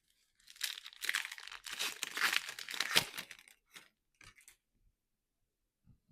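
A foil trading-card pack being torn open and its wrapper crinkled, lasting about three seconds with a sharp crack near the end, followed by a few brief crinkles.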